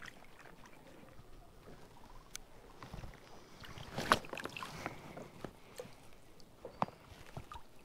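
Light knocks, clicks and water sounds from a fishing kayak. The sharpest click comes about four seconds in and another near seven seconds.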